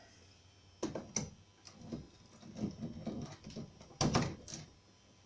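Clicks and knocks of a power plug being handled and pushed into a wall socket, with the loudest knock about four seconds in.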